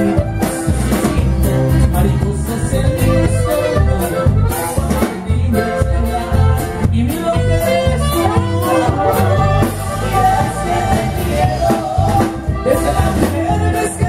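Live norteño band music played loud through a PA: button accordion and saxophone carrying the melody over bass notes and a steady drum beat.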